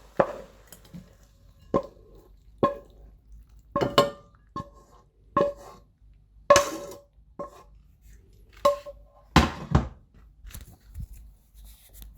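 A metal utensil clanking against a stir-fry pan: about ten irregular knocks, each with a short metallic ring.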